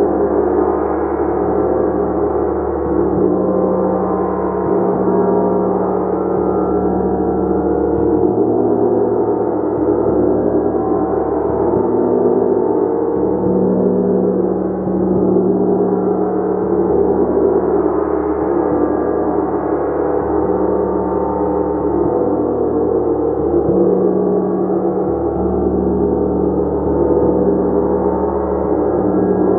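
Gong played continuously in a sustained wash, many overlapping tones shimmering and swelling at a steady loudness without distinct separate strikes.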